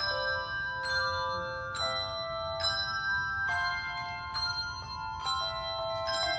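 Church bells ringing a tune, a new bell struck a little less than once a second, about seven strikes, each note ringing on under the next.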